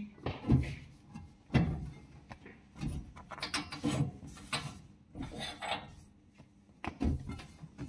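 Cloth wiping and rubbing over a stainless steel worktop, in irregular short strokes, with light knocks and handling noises.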